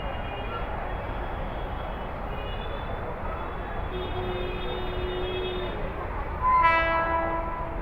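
Steady rumble of trains and a station, with a fainter held tone in the middle. Near the end, a local train's horn sounds once, loud and short, then cuts off.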